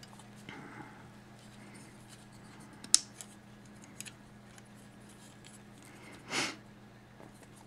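Faint handling of a plastic and diecast transforming robot toy as its arm and engine parts are rotated and folded: soft clicks of the joints, one sharp click about three seconds in, and a short rushing noise near the end, over a low steady hum.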